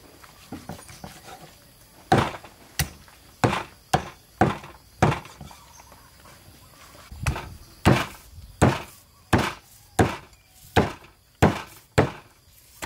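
Meat cleaver chopping through a rack of goat ribs on a wooden chopping block: a run of about six heavy chops, a short pause, then about eight more at a steady pace of roughly one and a half a second.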